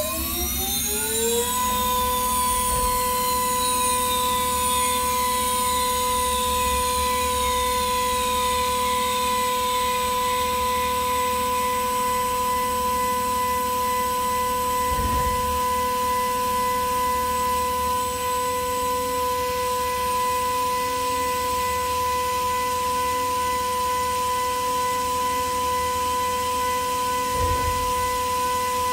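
High-speed vertical spindle of a CNC jewelry milling machine spinning up in a rising whine over about the first second and a half, then holding a steady high whine while a small end mill cuts the sides of a gold ring. A fainter, higher whine falls in pitch over the first several seconds, and two brief low thumps come about halfway and near the end.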